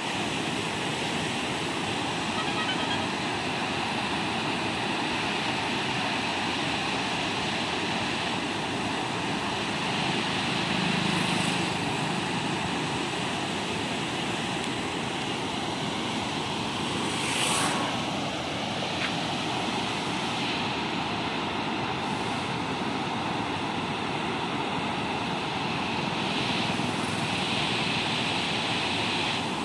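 River water pouring over a long low weir and rushing through rapids between rock shelves: a steady, even rush of water. A brief louder swell of noise comes about 17 seconds in.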